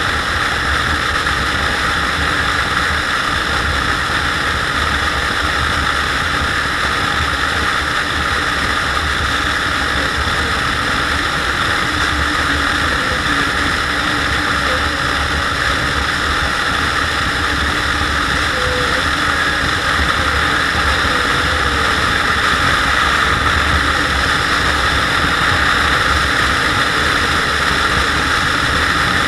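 Steady wind rush on the microphone over the drone of a SYM Joymax GTS 250 scooter's single-cylinder engine cruising at road speed, growing a little louder in the last third.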